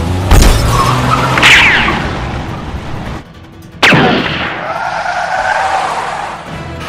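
Car-chase sound effects: a shot and a car window shattering just after the start, a tyre squeal and a car engine running, then a second sharp gunshot about four seconds in after a brief lull.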